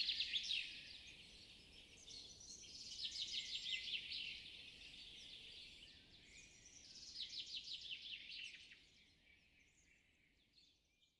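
Small songbirds chirping in quick, rapidly repeated trilled phrases, in three short bouts, faint and fading out near the end.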